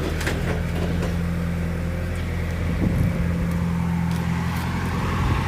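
Vehicle engine running steadily with a low, even drone, with a few faint knocks.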